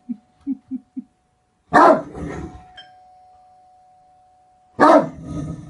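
Great Dane barking: two loud, deep barks about three seconds apart, each trailing off into a softer tail. Before them come a few short, quiet, low huffs in the first second.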